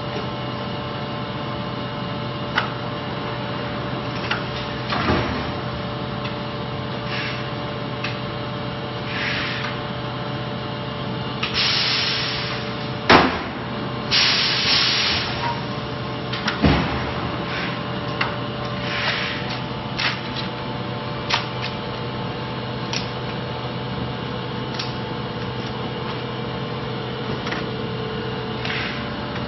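Kinder Joy egg welding machine running with a steady hum, broken by repeated short hisses and sharp clicks and knocks as it cycles.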